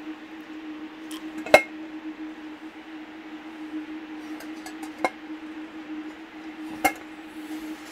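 Dishes being handled: three sharp clinks with a short ring, the first the loudest, about a second and a half in, at five seconds and near the end, over a steady low hum.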